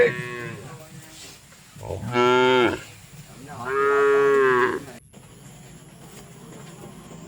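Cow mooing: two loud, drawn-out moos, about two and four seconds in, each lasting roughly a second.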